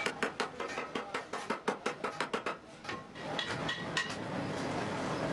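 Quick, light hammer blows, about five a second. They break off about two and a half seconds in, and a few more strikes follow before a steady background noise.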